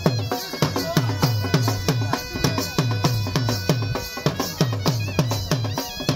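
Live drum and reed-pipe music played for dancing: deep drum strokes in a fast, even beat of about four a second, each stroke dropping in pitch, with shehnai-like reed pipes holding tones over the top.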